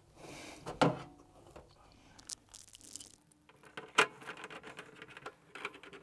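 Hands handling a tumble dryer's sheet-metal heater housing against the machine's back panel: a brief rustle, a sharp knock just under a second in, a small click, then a louder knock about four seconds in. Near the end come light clicks as a screwdriver starts a screw.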